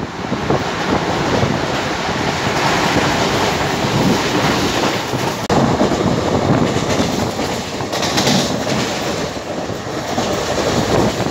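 Express passenger train running at speed, heard from an open coach doorway: wheels clattering over the rail joints above a continuous rolling noise, with a brief higher hiss about eight seconds in.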